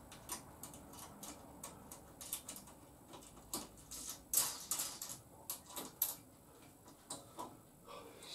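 Irregular light clicks and taps of small parts and tools being handled, with a few sharper clicks in the second half.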